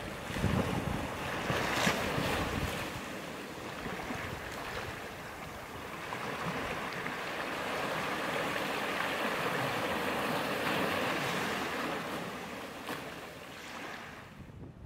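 Small waves breaking and washing up a sandy beach, swelling and ebbing. Wind rumbles on the microphone in the first few seconds.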